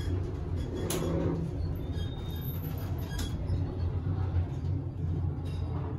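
Indoor ambience of a busy café atrium: a steady low rumble with faint chatter of voices and a few sharp clicks, about a second and three seconds in.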